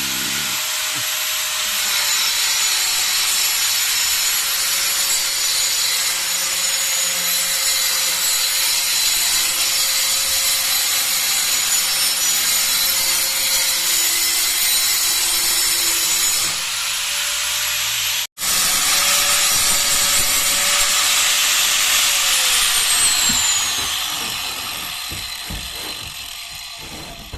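Power tool running continuously while cutting cement board, a steady motor tone under a loud hiss of cutting. It cuts out for an instant about 18 seconds in, then near the end the motor's pitch falls and the sound fades as it spins down.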